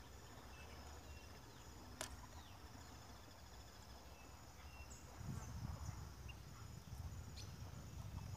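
Faint outdoor ambience with scattered short bird chirps, a single sharp click about two seconds in, and a low rumble from about five seconds on.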